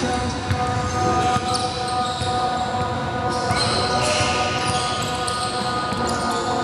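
Basketball being dribbled and bouncing on a hardwood gym floor during play, mixed with players' voices.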